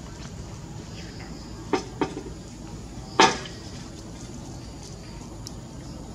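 Two sharp knocks, then a louder knock with a short ringing tail about three seconds in, as a baby monkey clambers and swings on a metal-framed table with wooden boards.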